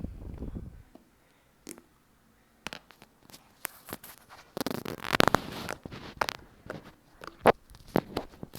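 Slime with foam beads being squished and stretched by hand: sticky crackling and sharp popping clicks, sparse at first and denser from about halfway through.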